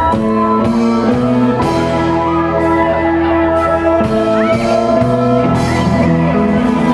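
Live rock band playing: electric guitar, electric bass, drum kit and keyboard, with held notes changing every second or so over a steady beat.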